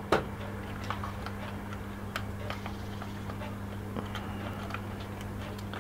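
Scattered small plastic clicks and taps as the two cars of an OO gauge model railcar are handled and their 8-pin coupling plug is lined up, over a steady low hum.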